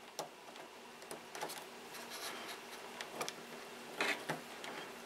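Plastic servo plug and its wire leads being handled and pushed into a receiver port: faint scattered clicks and rubbing, the loudest a couple of clicks about four seconds in.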